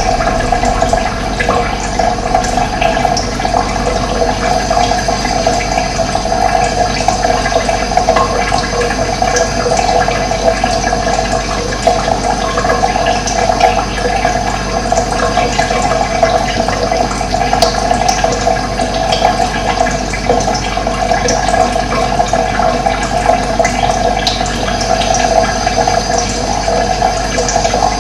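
Running water flowing steadily and evenly, with no pauses.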